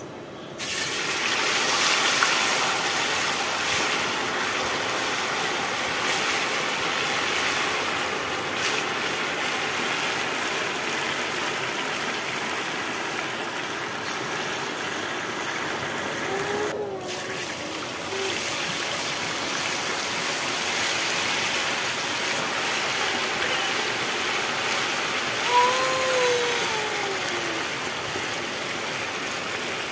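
Marinated mutton pieces deep-frying in hot oil in an aluminium karahi over a wood fire, the oil sizzling and bubbling steadily. The sizzle starts suddenly as the meat goes in. Two short rising-and-falling calls sound over it, about halfway through and again near the end.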